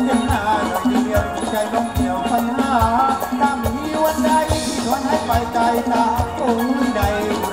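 Live Thai ramwong (circle-dance) music from a band: a wavering melody over a steady drum beat.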